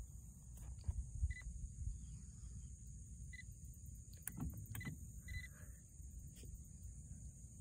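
Quiet lakeside ambience: a steady high insect drone, a few short bird chirps, low wind rumble on the microphone, and scattered faint clicks.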